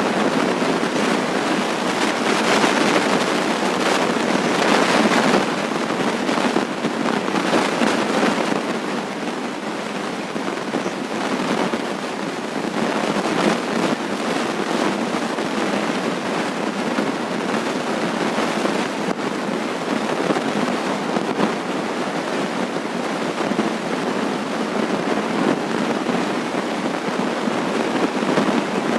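Loud, steady crackling hiss that sounds like heavy rain, though no rain was falling; its cause is unexplained.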